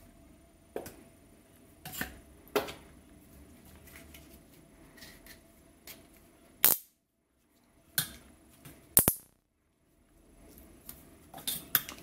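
Plastic zip-tie handcuffs being handled: scattered sharp clicks and taps of the stiff nylon straps and locking head, with two louder clacks in the middle and a quick run of clicks near the end.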